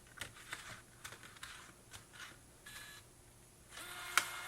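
Doxie Go WiFi sheet-fed scanner: light clicks and paper handling as a sheet is lined up, a short beep a little under three seconds in, then the feed motor starts with a steady hum about four seconds in as the rollers draw the sheet through.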